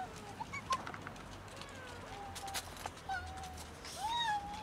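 Stray cats meowing: a few short meows, the loudest a rising-and-falling one near the end, among scattered sharp clicks.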